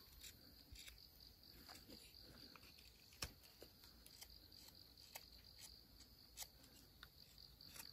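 Near silence: a faint steady high-pitched tone with a few scattered faint clicks, the clearest about three seconds in.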